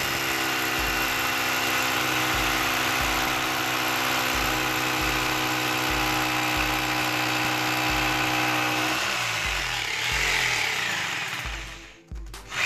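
Electric drill with a masonry bit boring a hole into a wall, its motor running at a steady pitch for most of the time. About nine seconds in the pitch wavers, and the sound drops out briefly just before the end.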